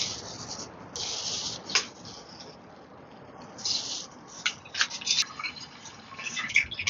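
Water poured and splashing in short spurts, with a few small knocks and clicks in between.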